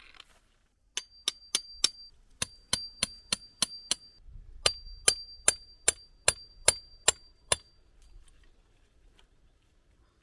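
Hammer blows on metal in three runs of quick strikes, about two to three a second, each blow leaving a high metallic ring.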